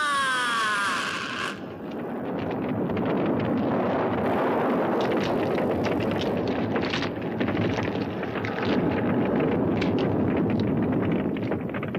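A cry gliding down in pitch, cut off about a second and a half in, then a long dense rumble of crashing rock and debris full of cracks and crackles: a sound effect of a mountain collapsing.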